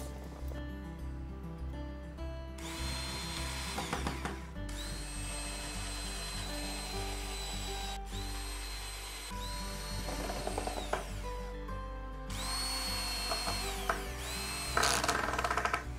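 Electric drill with a countersink bit boring screw holes into a wooden shelf board, its motor whine starting and stopping several times, then driving a screw, ending in a quick run of clicks. Background music plays underneath.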